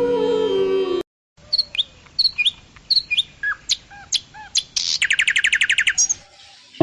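Birds chirping: a string of short, sharp whistled calls, then a fast trill near the end. It follows a stretch of Indian instrumental music that cuts off abruptly about a second in.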